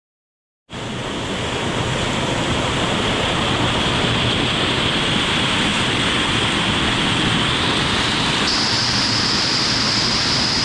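Waterfall rushing: a loud, steady roar of falling water that cuts in abruptly under a second in. Its high hiss steps up in pitch near the end.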